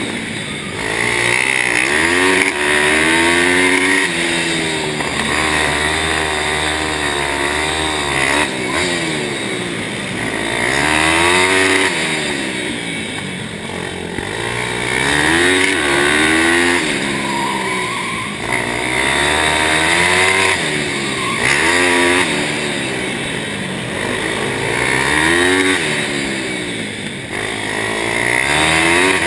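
Pitster Pro pit bike's small single-cylinder engine revving up and dropping back again and again as it accelerates out of each corner and closes the throttle into the next one, lapping a tight track.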